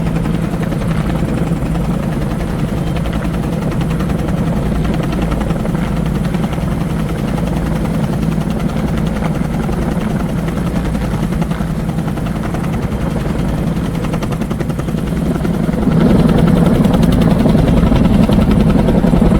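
Helicopter rotor and engine running steadily close by, the rotor beating evenly; the sound grows louder about sixteen seconds in.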